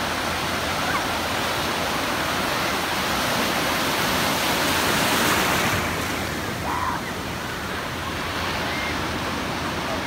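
Shallow ocean surf: breaking waves and white water rushing around the shallows in a steady wash, swelling about four to five seconds in and easing off just before six seconds.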